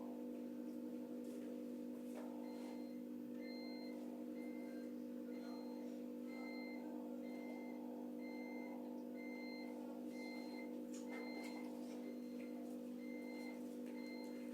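A steady low electrical hum with a faint, high electronic beep that starts about two and a half seconds in and repeats about every three-quarters of a second, plus a few soft clicks.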